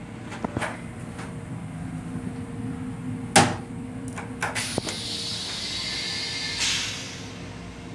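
Metro-North M7 railcar toilet: a loud knock a little over three seconds in as the seat is lifted, a few clicks of the push-to-flush button, then a steady hiss of the flush starting and swelling near the end. The railcar's constant hum runs underneath.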